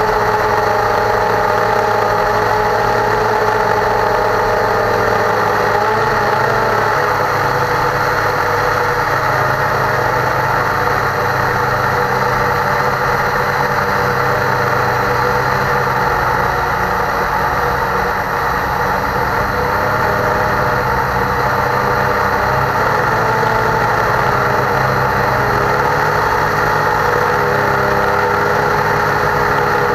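Cheerson CX-20 quadcopter's brushless motors and propellers, heard from the onboard camera in flight: a loud, steady whirring drone whose pitch shifts slightly a few times as the motors adjust their speed.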